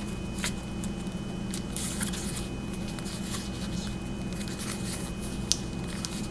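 A flashlight and a spare battery being fitted into a holster: soft rustling and a few light clicks, the sharpest near the end, over a steady low hum.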